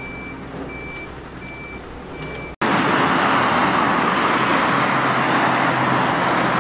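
Vehicle reversing alarm beeping evenly, about three beeps every two seconds, over a running engine. About two and a half seconds in the sound cuts abruptly to a much louder steady rushing noise with a low hum under it.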